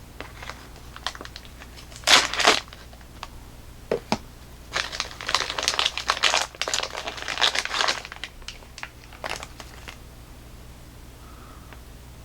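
Thin plastic wrapping crinkling as it is cut open and pulled off. There is a short burst about two seconds in and a longer stretch of crinkling from about five to eight seconds in, with a few sharp crackles between.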